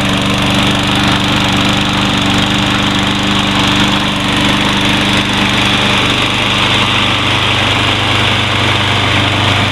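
Troy-Bilt TB230 walk-behind lawn mower's single-cylinder engine running steadily just after being started for the first time in about three weeks. Its tone shifts about six seconds in.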